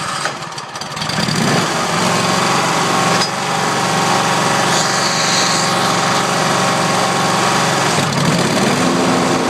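Riding lawn mower engine running, coming up to speed over the first couple of seconds and then running steadily. Its note shifts briefly about eight seconds in.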